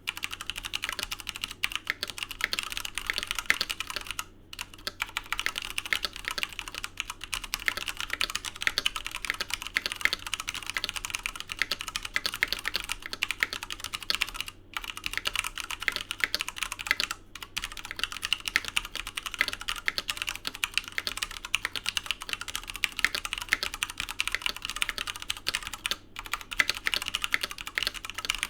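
Fast, continuous typing on a Filco Majestouch 2 TKL mechanical keyboard with Cherry MX Hyperglide Brown tactile switches and PBT keycaps, a dense run of key clacks with a few brief pauses.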